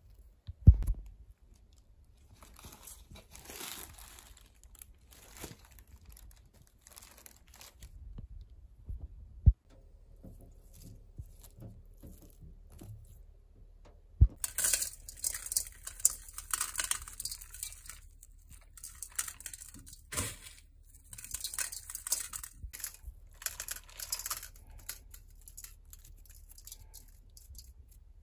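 Hands rustling through bunches of ponytail radish (altari) greens, the leaves and stems crinkling irregularly, with a few sharp knocks or snaps now and then. The rustling gets busier about halfway through.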